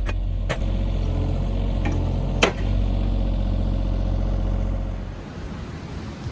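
An engine running steadily, with a few sharp clicks, then dropping away about five seconds in.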